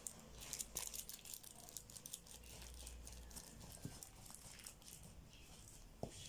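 Faint scattered clicks and rustles of close handling, over a low hum that stops about halfway through.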